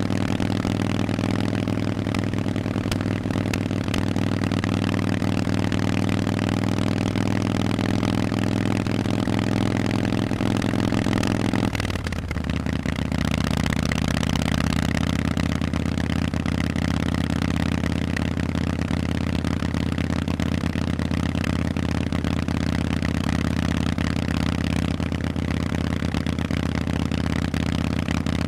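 Harley-Davidson Forty-Eight's 1200 cc V-twin running loud through Vance & Hines exhausts at a steady engine speed. About twelve seconds in the note dips briefly and shifts abruptly to a new steady pitch, then holds there.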